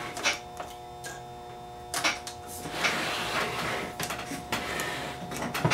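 Clicks, knocks and rustling scrapes of hands and tools working inside the open chassis of a Teac A3340 reel-to-reel tape deck as it is tilted and its pinch roller assembly handled, over a steady faint hum.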